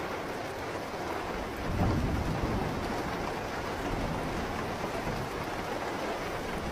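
Steady rainfall with a low rumble of thunder swelling up about two seconds in and rolling on under the rain.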